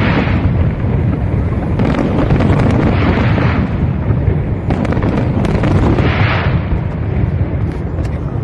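Aerial fireworks shells bursting in quick succession: a continuous rumble of booms with many sharp bangs.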